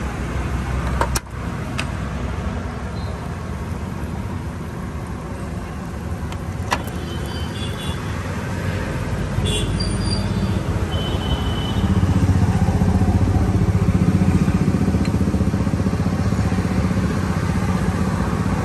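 Steady rumble of road traffic passing a roadside stall, growing louder past the middle, with a sharp click about a second in and another several seconds later.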